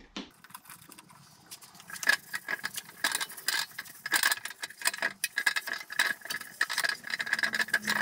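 A rag scrubbed hard over a steel engine sump (oil pan) with wax and grease remover: a fast run of rubbing and rattling that starts about two seconds in, with a thin steady tone running through it.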